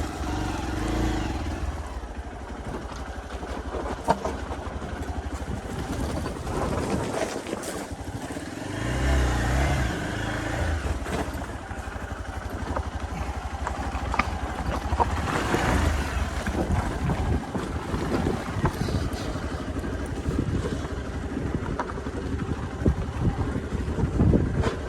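Hero XPulse 200's single-cylinder engine running while riding, its pitch and level rising and falling, with scattered knocks and rattles.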